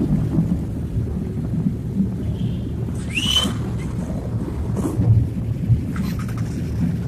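Low, steady rumble of road traffic, with wind buffeting the microphone. A brief rising squeak comes about three seconds in.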